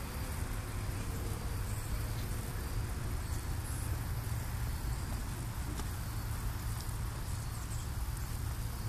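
Steady outdoor background noise: a low rumble with a thin hiss over it, and no distinct event.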